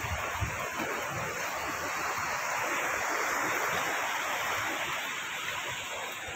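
Steady rushing of flowing water, like a river running below, swelling slightly midway, with a few soft low thumps near the start.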